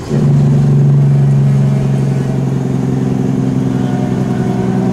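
Semi truck's diesel engine pulling hard under throttle, a loud steady drone that comes on suddenly and climbs slightly in pitch as the truck gathers speed.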